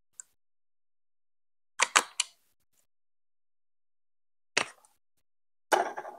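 Plastic Lego Duplo bricks clicking and knocking as they are pressed together and set in place: a faint click, a quick run of three clicks about two seconds in, a single knock, then a longer rattling plastic clatter near the end.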